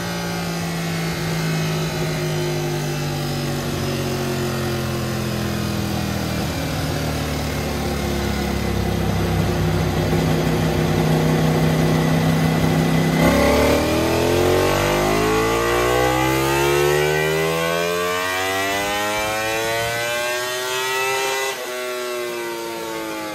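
Ducati Panigale V4R's 999cc 90-degree V4 running on a rear-wheel dyno through a full titanium Akrapovic racing exhaust. The revs drift slowly down at first. About 13 seconds in, a dyno pull starts and the revs climb steadily for about eight seconds, then break off sharply and fall away as the throttle closes.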